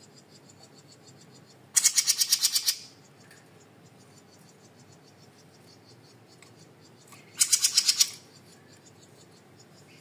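Small caged songbird singing two short, loud, rapid trilled phrases about five seconds apart, each a fast run of sharp high notes lasting about a second.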